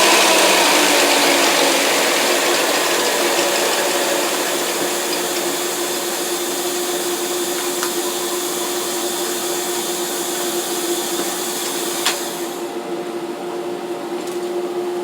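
Electric thickness planer running with a steady hum and a loud high hiss as the glued-up oak panel is flattened, slowly getting quieter. Near the end there is a click and the high hiss drops away, leaving a steady hum.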